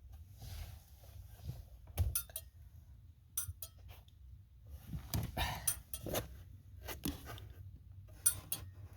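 Triumph Stag's turn-signal flasher unit ticking as the indicators flash, a series of sharp clicks about every second or so: the indicators working again.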